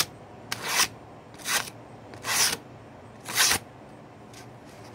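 A sharp chainsaw-chain Damascus steel dagger slicing through a sheet of paper in four quick strokes, about one a second, each a short hissing cut: a test of the freshly sharpened edge.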